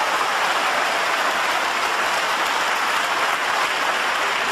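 Snooker audience applauding a difficult pot, steady clapping from a large crowd.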